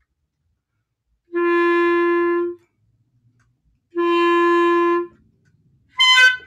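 Clarinet with a synthetic reed playing open G twice, each note held a little over a second, then a brief high squeak near the end. The player takes in more mouthpiece with each note; the squeak comes from taking in too much.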